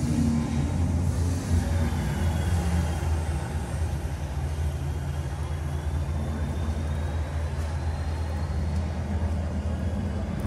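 Steady rain hiss over a continuous low hum, with a faint high thin tone drifting through the middle.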